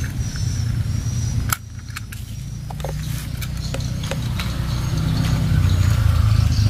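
A steady low rumble, with scattered light clicks of plastic toy train cars being handled and coupled together.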